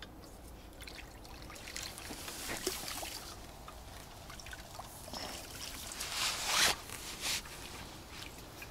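Irregular rustling and water trickling as a freshly landed carp is handled in wet grass, with a louder rush of noise about six seconds in.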